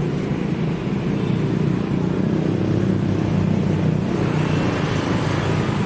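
A steady, low engine-like hum, as of a motor vehicle running close by, with a hiss coming up from about four seconds in.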